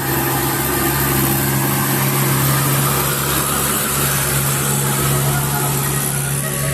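Bus engine running with a steady low hum under a loud, even rushing noise.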